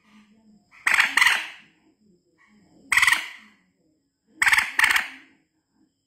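Common moorhen calling: three short, loud calls about one and a half to two seconds apart, the first and last each a quick double note.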